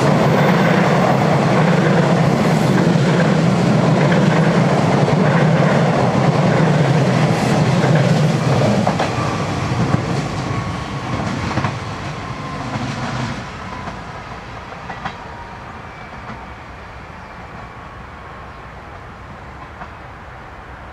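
Fertagus 3500-series Siemens-CAF double-deck electric multiple unit passing close by: a loud rumble of wheels on rail with a few clicks from the rail joints. After about ten seconds it fades to a quieter rumble as the train draws away.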